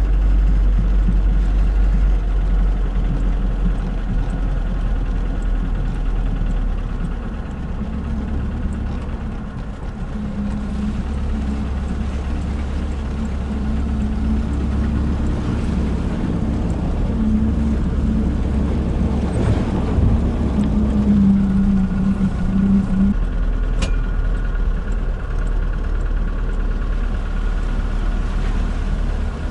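UAZ-452 'Bukhanka' van's engine running as it drives off-road through mud, a steady low drone whose pitch rises and falls partway through as the revs change.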